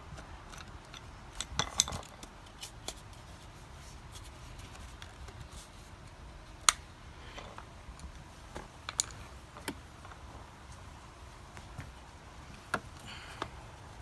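Scattered small clicks and taps of a screwdriver and small hard plastic parts being handled while a mini Bluetooth speaker's plastic case is taken apart. There is a cluster of clicks about two seconds in, then single sharper clicks now and then.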